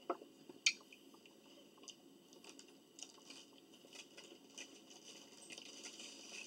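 Faint chewing and mouth sounds close to the microphone, with a few sharp clicks in the first second.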